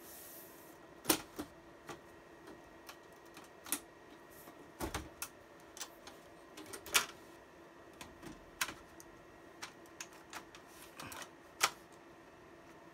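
Irregular metallic clicks and clacks of a Dell PowerEdge rack server's sheet-metal top cover being pressed and worked onto the chassis while it fails to seat, with a few sharper snaps, over a faint steady hum.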